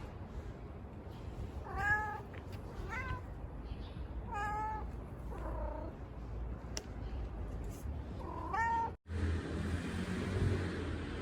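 Domestic cat meowing repeatedly: about five short calls, each bending up and down in pitch, the last a little after eight seconds in. About nine seconds in the sound cuts out for an instant and a steady background noise follows.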